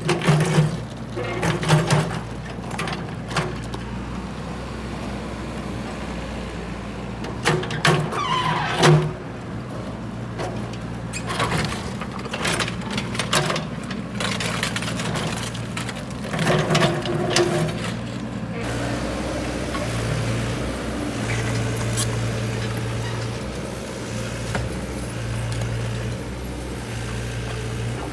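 Mini excavator's diesel engine running, with repeated metallic clanks and knocks from the machine working. About two-thirds through the sound changes to a steadier engine hum with fewer knocks.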